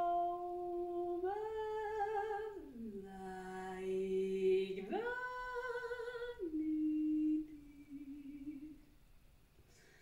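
A woman's voice singing long wordless notes in free improvisation: a held note that steps up, slides down to a low note held about two seconds, slides back up to a higher note, then sinks again and fades out about nine seconds in.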